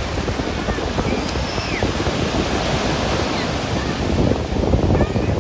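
Heavy surf breaking and washing up the shore in a steady rush of noise, with wind buffeting the microphone.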